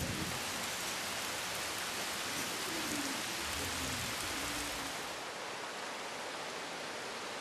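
Heavy rain pouring down: a steady, dense hiss that becomes a little quieter about five seconds in.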